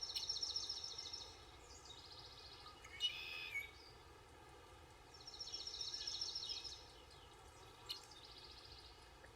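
A songbird singing a fast, high trilled phrase twice, about five seconds apart, each trill dropping to a slightly lower run at its end. A short, sharp sound with a brief swish about three seconds in.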